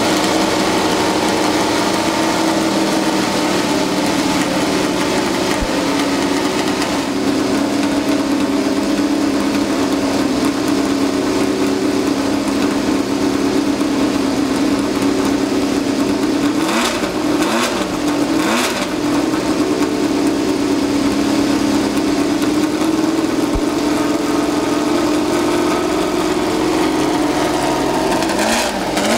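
Ford Cosworth DFV 3.0-litre V8 of a 1970 Tyrrell 001 Formula 1 car warming up, idling steadily through open exhaust pipes. The engine is blipped briefly two or three times about two-thirds of the way through, and once more near the end.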